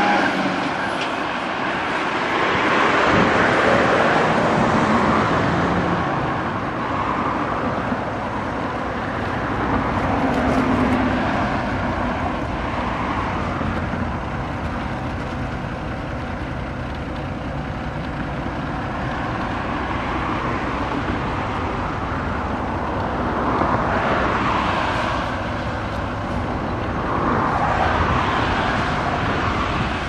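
Road traffic: cars passing one after another, the noise swelling and fading with each pass over a steady background hum.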